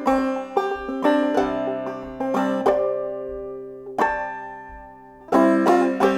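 Banjo played clawhammer style: a run of quick plucked notes, then a stretch of a few notes left to ring out, then a fresh burst of picking about five seconds in.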